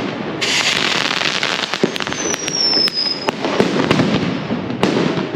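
Street firecrackers going off in a dense run of cracks and bangs. A high whistling firework sounds about two seconds in, its pitch sliding slightly downward over about a second.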